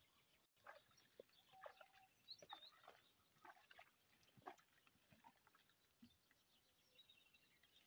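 Near silence: faint garden ambience with scattered soft ticks and a few faint bird chirps.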